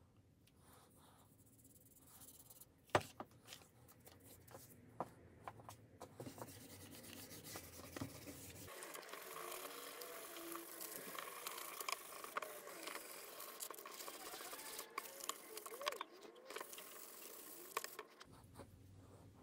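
A brush scrubbing a steel billhook blade in a vinegar bath, scratchy and wet with small splashes, from about nine seconds in until near the end; the rust has been loosened by two days soaking in vinegar. Before that, scattered clicks and knocks of the blade being handled in the tray, with one sharp knock about three seconds in.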